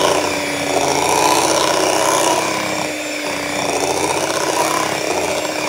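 Electric hand mixer running at a steady speed, its twin beaters churning thick cream cheese and ube batter in a glass bowl.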